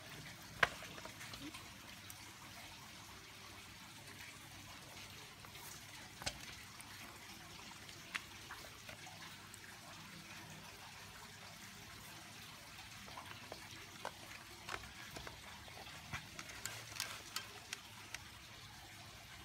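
Hands rubbing salt into the wet skin of a whole raw chicken in a metal basin: soft wet squelching and rubbing, with scattered small slaps and clicks that come more often near the end.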